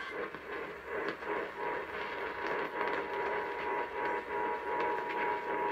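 Emergency Alert System attention signal, the steady two-tone alert (853 and 960 Hz together), received over a radio through heavy static and hiss; the tone comes in about a second in. It marks the start of an EAS Required Monthly Test.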